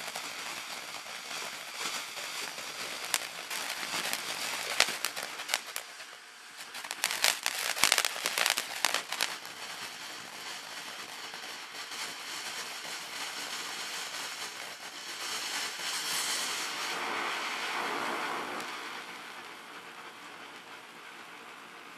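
Black Cat 1.21 Gigawatts 200-gram fountain firework spraying sparks: a steady hiss laced with crackling pops. There is a dense run of loud crackles about seven to nine seconds in and a louder rushing hiss around fifteen to eighteen seconds, then it settles to a softer hiss near the end.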